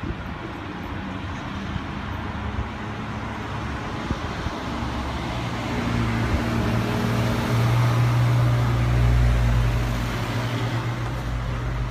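Black Ferrari 458 Italia's V8 running at low revs as the car drives slowly past, its low engine note growing louder as it goes by and then easing off, over light street traffic.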